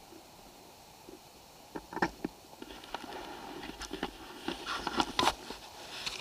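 Irregular clicks, taps and rustling close to the microphone, sparse at first and growing busier and louder from about two seconds in, with no engine running.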